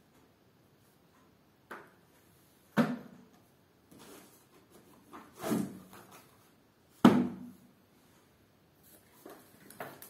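Paperback books being set down one at a time onto other books laid out on the floor: a series of short knocks, the loudest about three and seven seconds in, with lighter taps near the end.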